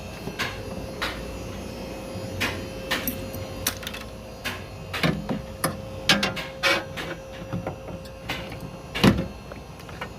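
Irregular clicks, knocks and plastic snaps of hand work on a car door's window regulator and its clips, with one sharper knock about nine seconds in. A faint steady hum runs under it and stops about then.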